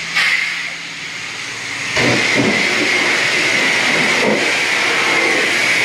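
High-pressure car-wash wand spraying water against a car body: a steady hiss that gets louder about two seconds in.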